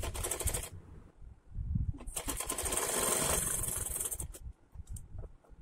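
Sewing machine stitching folded piping onto the edge of the fabric, in two short runs of rapid needle strokes: about half a second at the start, then a longer run of about two seconds starting about two seconds in.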